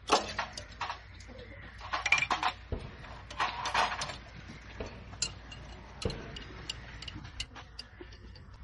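Irregular clicking and clattering of hard objects, with short clusters at the start, about two seconds in and nearly four seconds in, and scattered single clicks after.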